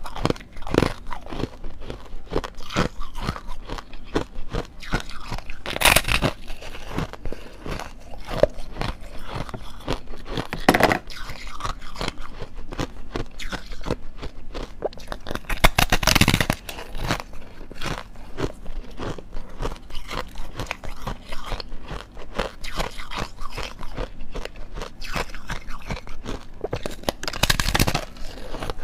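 Close-miked biting and chewing of frozen foam ice with thin hard ice layers: dense, crisp crunching and crackling, with a few louder bites.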